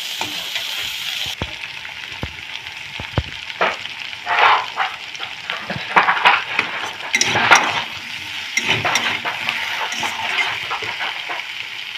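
Potato and aubergine pieces frying in hot oil in a wok with a steady sizzle, while a metal spatula scrapes and knocks against the pan as they are stirred now and then.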